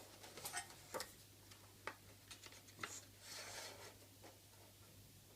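Faint, scattered clicks and taps of plastic airsoft gun parts being handled while something is worked into place, about one click a second, with a short rustle around three seconds in.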